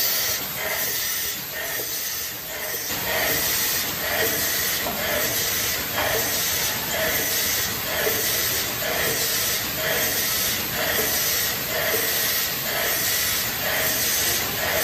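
Automatic cup screen printing machine running through its print cycle, with pneumatic air hissing and the print head and cup handling moving in a steady, even rhythm a little under a second per stroke.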